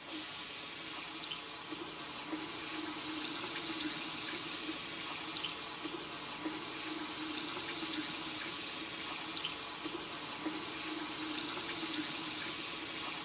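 Bathroom sink faucet running steadily, water pouring into the basin.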